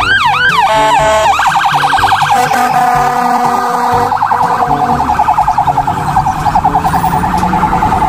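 Electronic ambulance siren: a repeating rising whoop that switches about a second in to a fast, high warble.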